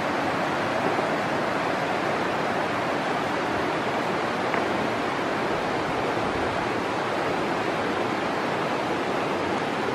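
Steady, even rushing noise with no distinct events, like running water or wind.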